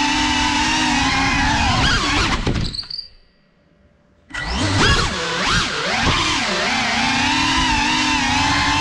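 FPV quadcopter's motors and propellers whining, the pitch wavering with the throttle. About two and a half seconds in the whine dies away to near silence for about a second as the throttle is cut and the quad drops, then comes back with quick rising and falling sweeps as it throttles up again.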